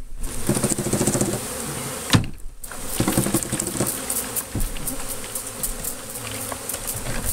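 Honeybee colony buzzing steadily as bees are bumped out of one hive box into an open hive below, with a single sharp knock about two seconds in.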